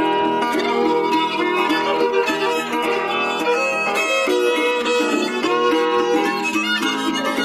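Instrumental string music: a fiddle carrying the melody over plucked string accompaniment.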